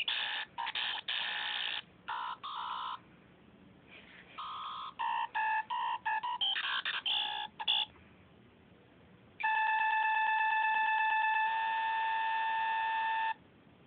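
Circuit-bent talking apple alarm clock's small speaker playing electronic beep-tone melody in choppy fragments that start and cut off abruptly. About nine seconds in comes a sustained alarm tone of several pitches lasting about four seconds, fluttering quickly at first, then holding steady.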